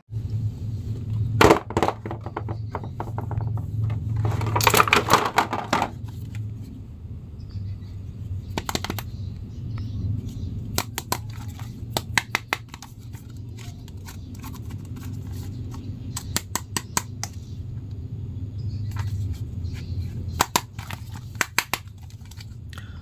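Plastic action figures being handled over a clear plastic bag: crinkling plastic and many sharp little clicks and knocks of the hard plastic figures, with a longer rustle about five seconds in. A steady low hum runs underneath.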